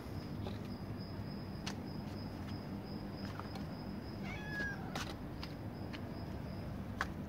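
A stray cat meows once, briefly, about four and a half seconds in. Several sharp clicks fall around it, the loudest near the end, over a steady thin high-pitched whine and a low hum.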